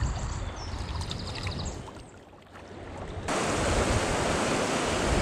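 Small birds chirping over a low rumble, then, after an abrupt change about three seconds in, the steady loud rush of a fast river swollen with high water.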